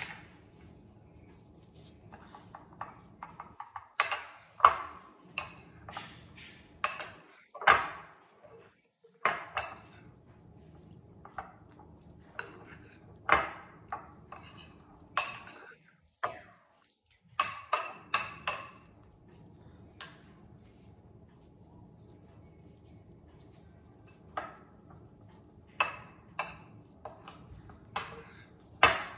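Metal spoon clinking and scraping against a ceramic bowl while mixing tuna and mayonnaise, in irregular taps with a short high ring. There is a quick run of taps about two-thirds of the way through and a few seconds' lull just after.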